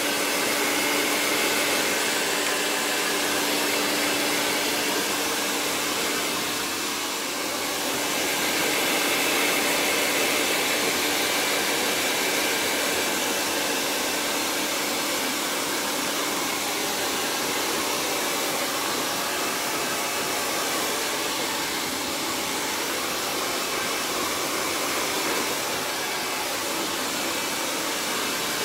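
Handheld hair dryer blowing steadily while wet short hair is blow-dried. A steady motor hum sits under the rush of air, which dips briefly about seven seconds in before picking up again as the dryer moves about the head.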